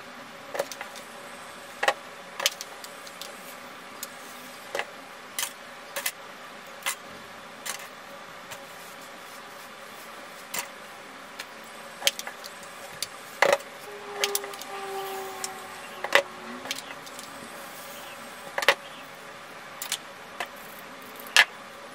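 Scattered sharp clicks and taps, irregularly spaced about one every second or so, over a steady faint hum; about two-thirds through, a couple of short low steady tones sound briefly.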